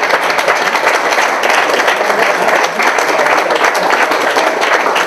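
Audience applauding: many hands clapping steadily without a break.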